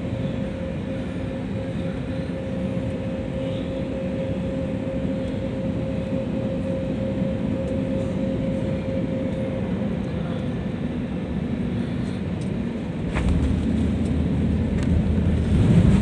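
Airliner cabin noise on final approach: steady engine and airflow noise with a steady whine that fades out, then about thirteen seconds in a sudden low rumble as the wheels touch down and roll on the runway, growing louder near the end.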